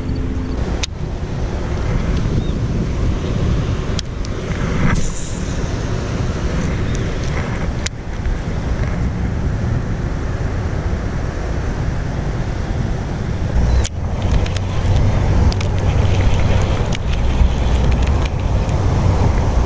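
Wind buffeting an outdoor microphone: a steady, fluctuating rumble, with a few sharp clicks scattered through it from handling the rod and reel.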